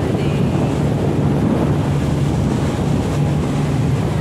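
Steady low engine drone of the boat carrying the microphone, mixed with wind buffeting the microphone and choppy water washing against the hull.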